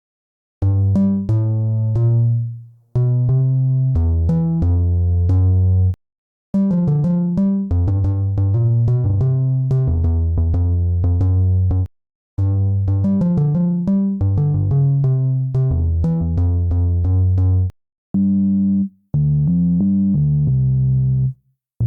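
Synth bass loops played one after another, each lasting one to five seconds with a short silence between them; repeating low notes with sharp attacks.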